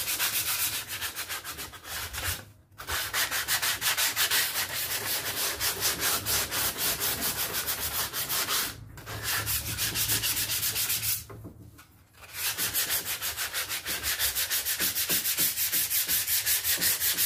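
220-grit sandpaper on a hand sanding block, rubbed in rapid back-and-forth strokes along the jigsaw-cut edge of a door panel board to smooth it. It stops briefly twice and once for about a second before carrying on.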